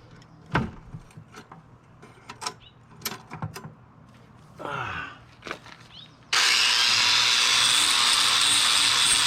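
A few light clicks and knocks, then about six seconds in a power tool, most likely an angle grinder on welded steel, starts suddenly and runs with a steady high whine.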